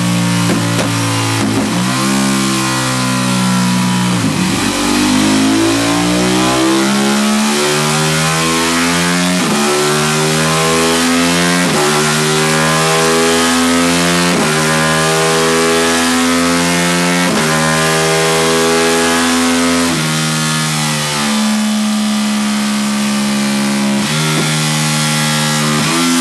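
Ducati 1299 Panigale's 1285 cc L-twin engine running hard on a dyno with its rear wheel driving the roller. The revs fall over the first few seconds through several quick breaks, then climb again, cut briefly about every two and a half seconds as the electronic quickshifter and auto-blipper change gear.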